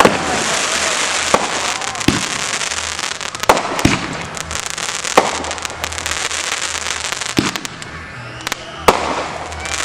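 Fireworks going off: a dense, continuous crackling with separate louder bangs every second or two.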